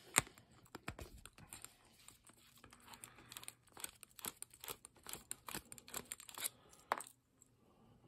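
Screwdriver working in the back of an Abus Rock padlock to pop out its interchangeable core: faint metal clicks and scrapes, with one sharper click just after the start, dying away near the end.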